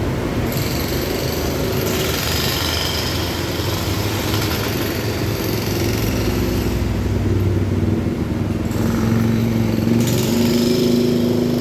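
An engine running steadily, its pitch climbing a little in the last few seconds.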